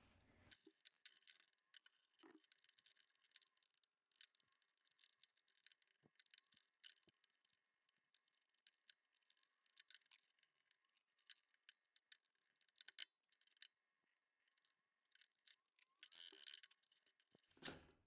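Faint, scattered clicks and clinks of small steel nuts, washers and bolts being unscrewed and set down while a bolted plastic mould is taken apart, with a denser run of clicking near the end.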